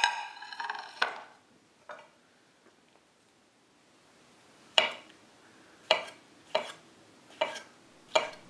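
A sharp clink that rings briefly, then a chef's knife slicing through mushrooms onto an end-grain walnut cutting board: five short knocks, a little under a second apart, in the second half.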